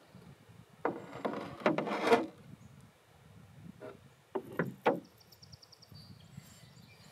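Wooden paddle scraping and knocking against the wooden canoe's hull as it is laid down, with a creaking scrape about a second in and a few sharp knocks near the middle. A brief run of fast ticks follows from a spinning reel as the rod is readied.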